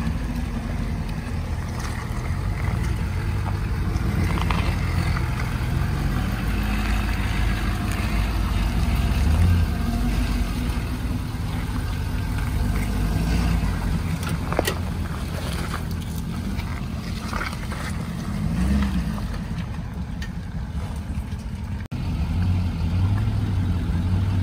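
Ford F-250 Super Duty's 6.7-litre Power Stroke V8 turbodiesel running at low revs as the truck crawls over a muddy, rocky trail, its deep rumble rising and falling a little with the throttle.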